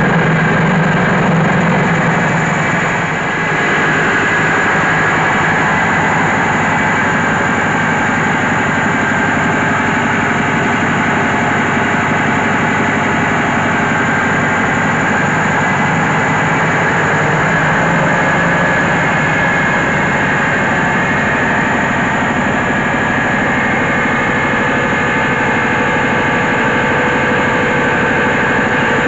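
Diesel engine of a mobile rice mill running steadily, belt-driving the rice huller, a loud continuous mechanical drone.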